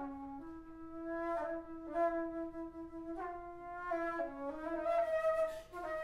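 Alto flute playing a slow solo melody, starting a phrase right after a brief silence: long held low notes, each change of note reached through a quick ornament.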